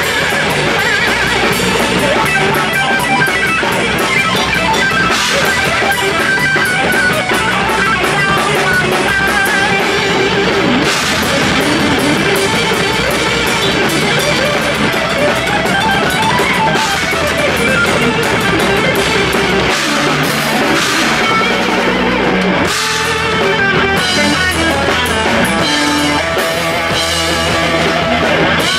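Rock band playing live: guitars over a drum kit, loud and continuous, with the low end thinning out for a few seconds past the middle.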